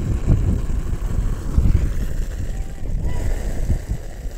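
Wind buffeting the microphone in uneven gusts, a deep rumble with little above it.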